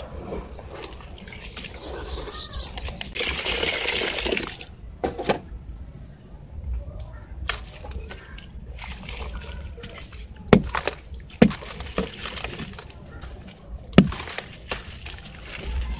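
Hands squeezing and crumbling wet sand-cement in a basin of water: sloshing and splashing, with water and wet grit pouring off the lump, a longer spell of splashing a few seconds in, and three sharp thuds in the second half.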